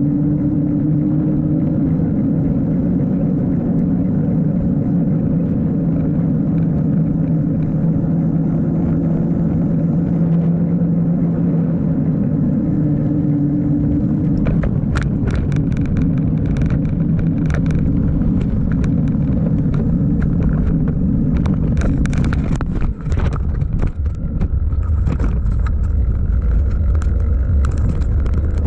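Santa Cruz mountain bike rolling fast on pavement: its tyres make a steady humming rumble. From about halfway, sharp irregular clicks and rattles from the bike come through, and in the last few seconds a low wind rumble on the microphone grows.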